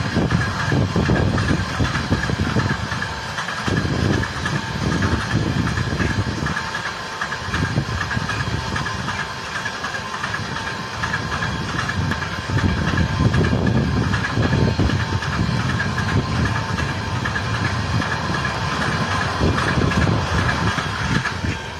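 Freight train of container wagons rolling past: the wheels rumble and clatter on the rails, swelling and easing every few seconds as the wagons go by, over a steady high tone.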